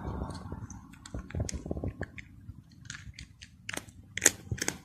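Egyptian Mau cat chewing dry food eaten from a person's palm: irregular crunches and clicks, the loudest near the end.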